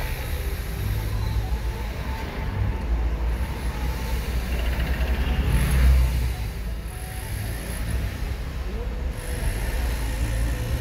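Car driving through city streets: a steady low engine and road rumble, swelling briefly about six seconds in.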